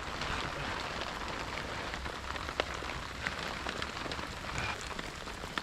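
Heavy rain falling steadily, with scattered sharper drop taps and one louder click about two and a half seconds in.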